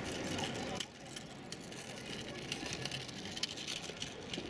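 Outdoor ambience of a busy pedestrian plaza: distant voices of people with scattered light ticks. The whole background drops suddenly in level about a second in.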